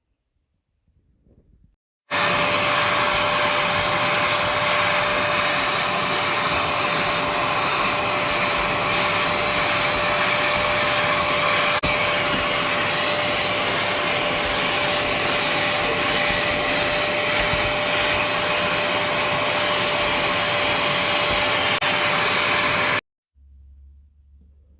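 Bissell ProHeat 2X cleaning machine's motor running steadily with a constant whine, switching on abruptly about two seconds in and cutting off abruptly a couple of seconds before the end.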